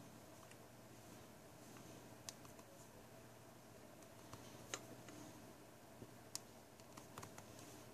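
Near silence: faint room hum with a few small, sharp clicks scattered through it.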